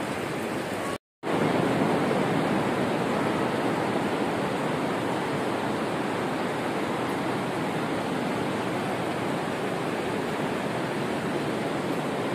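Steady rushing hiss with no distinct events. It cuts out briefly about a second in, then resumes slightly louder.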